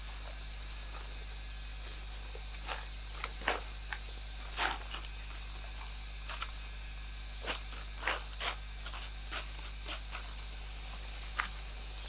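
Steady high-pitched drone of insects, with a dozen or so short crackles of dry leaf litter being rustled and stepped on.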